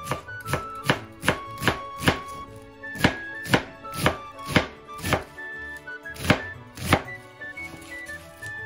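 Kitchen knife finely shredding cabbage on a cutting board: sharp chopping knocks about two a second, in short runs broken by brief pauses, over light background music.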